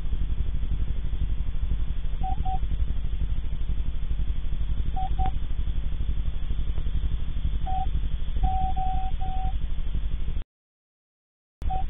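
Short paired tones repeating every two to three seconds over a steady, rapidly pulsing low hum, with a longer string of tones near the end. The sound is narrow and muffled, as recorded through a surveillance camera's built-in microphone, and drops out entirely for about a second near the end.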